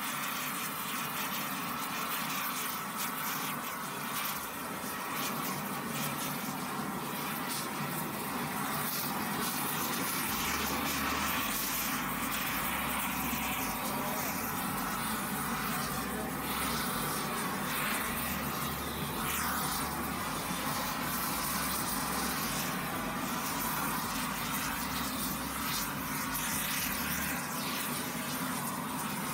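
Propane weed-burner and rosebud torch flames burning with a steady rushing hiss, preheating a cast iron brake drum and steel plate to 500–750 °F before welding.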